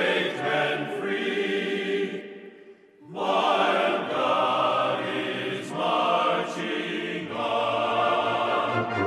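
Choral music: a choir singing as a music track. It fades almost to nothing about two and a half seconds in, then comes back in.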